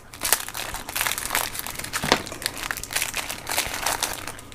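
Wrapper of a packet of shortbread cookies crinkling in irregular crackles as it is handled and the cookies are squeezed and pulled out.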